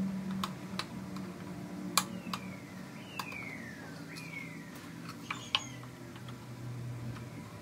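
Plastic speaker grille panels clicking and tapping as they are set and pressed into a wooden speaker box, with a few short falling squeaks between the taps over a low steady hum.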